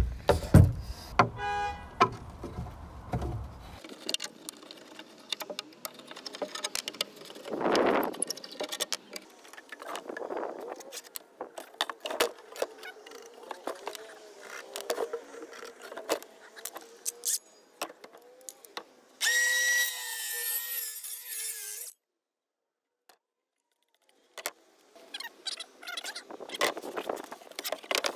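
Wooden boards and tools being handled on a wooden table: repeated knocks, clatter and wood scraping on wood. A brief wavering whine comes about two-thirds of the way through.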